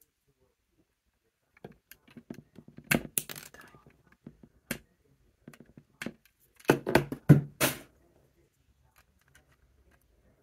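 Plastic Lego bricks being prised apart by hand: a string of sharp clicks and cracks, one loud snap about three seconds in and a cluster of louder cracks around seven seconds, then it goes quiet.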